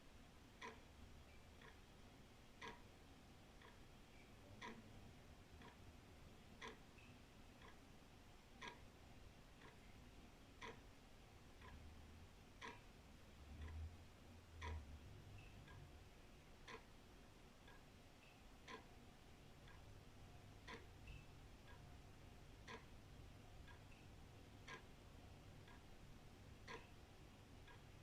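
Old wall clock ticking faintly and evenly, about one tick a second, alternating louder and softer beats.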